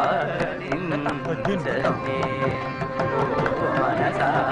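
Carnatic music played on harmonium and mridangam, with held melodic notes over quick drum strokes.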